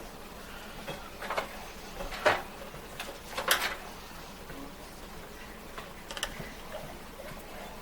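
Screws being backed out of a microwave's control board with a Phillips screwdriver, with handling of the plastic panel: a few scattered clicks and scrapes, the sharpest about two and three and a half seconds in.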